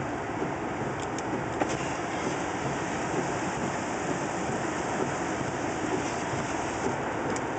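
Heavy rain pouring down in a thunderstorm, a steady, even rush with a few faint ticks.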